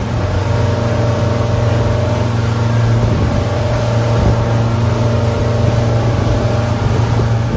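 Twin Yamaha 200 hp outboard motors running steadily at cruising speed, a constant drone under the rushing wash of the wake.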